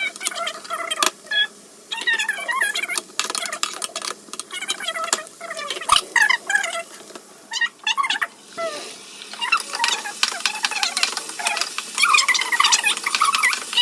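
Metal spatula stirring frying onions in a pan, with sharp scraping clicks throughout. High, wavering chirps run over it.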